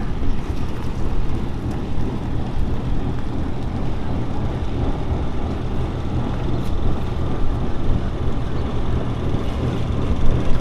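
Steady low rumbling outdoor noise with no clear pitch, loudest in the deep bass.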